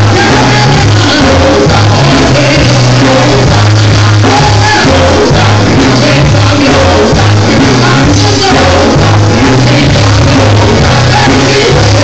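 Live gospel quartet music: a band with a bass line of repeated low notes and drums, with men's voices singing and shouting over it.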